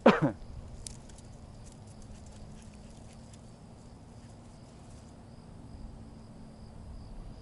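The end of a short loud call at the very start, then faint open-air quiet with light scattered ticks of footsteps on dry dirt and a faint steady high hum.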